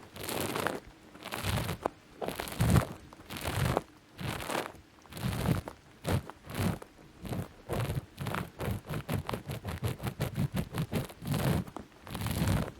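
Close-miked ASMR ear picking and gripping: crunchy scratching and rubbing strokes, about one a second, then a quicker run of short strokes, several a second, in the second half.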